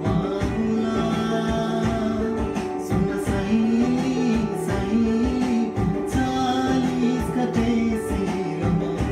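A man singing a Nepali song along to a karaoke backing track with guitar, his voice holding and bending long sung notes.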